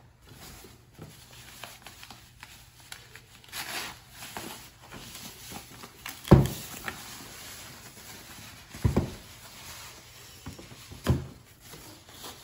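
Rustling of a fabric dust-cover bag being worked off a Cricut Maker cutting machine, with three dull thumps on the table, the loudest about halfway through.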